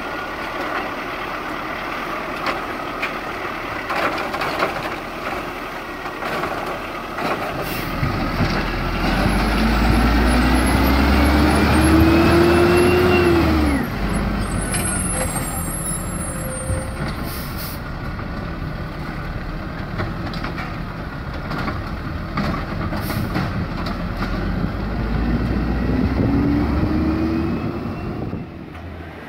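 A garbage truck's engine running, with its pitch climbing twice as the revs rise for several seconds. The first rise ends with an abrupt drop back down; both sit over a steady low rumble.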